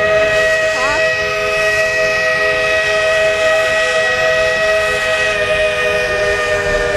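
Steam locomotive No. 40's chime whistle blowing one long, steady blast, several notes sounding together as a chord over a hiss of steam, stopping just before the end.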